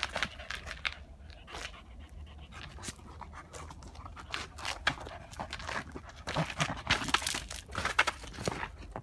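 Small dog panting hard while it plays with a ball, with short scuffs of the ball and paws on pavement; the rasps come thicker and louder in the last few seconds.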